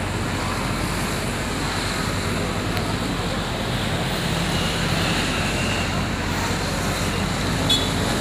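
Steady low rumble of diesel bus engines idling, over a constant hiss of background noise.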